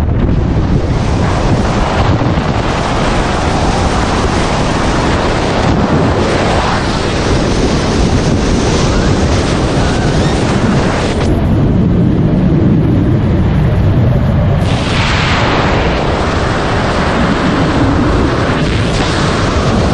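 Loud wind rushing over the camera microphone during wingsuit flight at speed, a steady roaring hiss that turns briefly duller between about eleven and fifteen seconds in.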